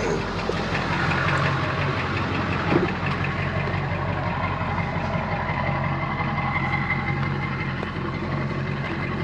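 Tow truck's engine running steadily, a continuous low hum.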